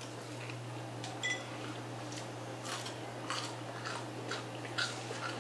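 Chewing of crispy fried catfish nuggets and fries: scattered short crunches every half second or so, over a steady low hum.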